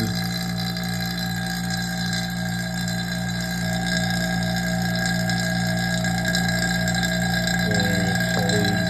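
Electric vacuum pump running with a steady motor hum, its oil freshly topped up. Its sound turns briefly rougher near the end.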